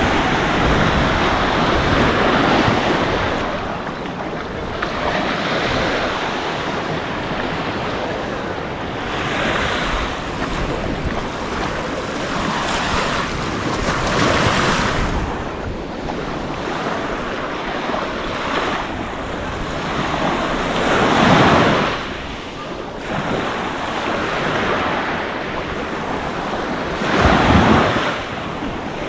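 Waves washing onto a sandy beach, with wind on the microphone. The surf swells and ebbs, and is loudest about two-thirds of the way through and again near the end.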